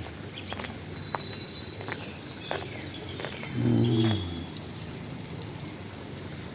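Swollen, muddy river flowing with a steady rush, with a few light footsteps and high bird chirps. A little past halfway in, a short low call with a falling pitch stands out above the water.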